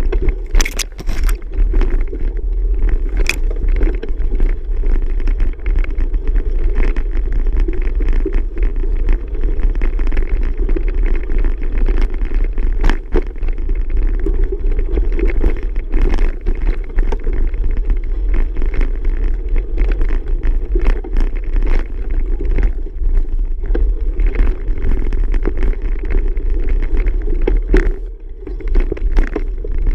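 Riding noise from a bicycle on the move: steady wind rumble on the microphone, with frequent small knocks and rattles from bumps along the way. The noise eases briefly near the end.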